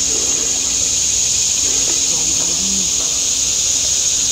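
Insect chorus: a loud, steady, high-pitched drone that does not let up.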